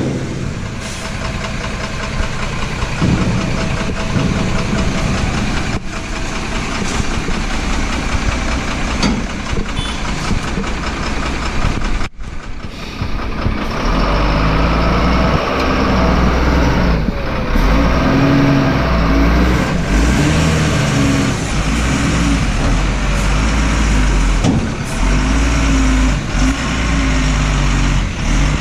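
Tata tipper truck's diesel engine running while the dump body is raised to tip out the load. After a sudden break about twelve seconds in, the engine revs up and down as the truck, body lowered, pulls away.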